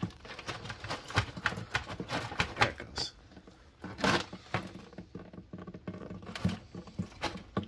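Plastic blender jar of thick blended pear pulp being shaken upside down over a plastic bucket to get the pulp out: a run of irregular light knocks and taps, with a louder knock about four seconds in.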